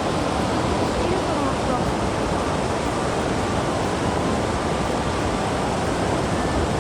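Mountain stream rushing: a steady, even noise of fast-flowing water.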